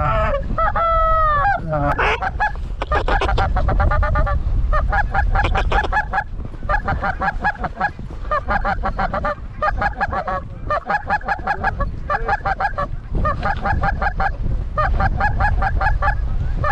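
Geese honking, many short calls in quick runs separated by brief gaps, with a low steady wind rumble underneath.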